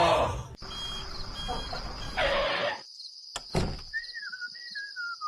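A sung phrase ends at the start. Then comes bus noise, a vehicle running with short repeated high beeps. From about three seconds in there is a steady, high insect-like chirring, with a falling whistled tone over it near the end.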